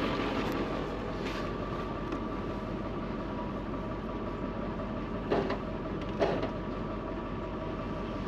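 Tow truck's winch drawing in its cable under load as it pulls a stuck SUV, with a steady running drone and a faint whine. A few sharp clicks are heard, two of them about five and six seconds in.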